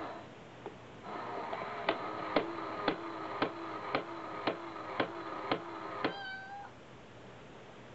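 Battery-operated cat coin bank's small motor mechanism running with a steady whir and a sharp click about twice a second as a cat presses on its top, ending in a short meow about six seconds in.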